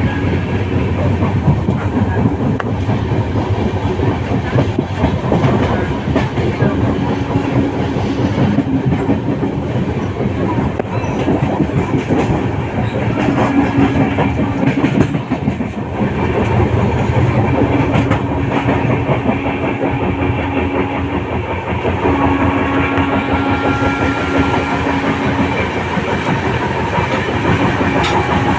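Passenger train running along the track, heard from inside the carriage: a steady rumble with wheels clacking over the rails, and a low hum that comes and goes several times.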